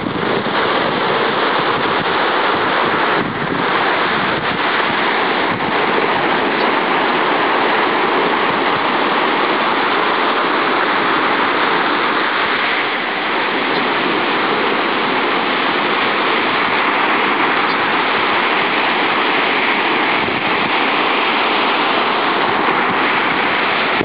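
Atlantic surf breaking and washing up onto a sandy beach: a steady, unbroken rush of waves.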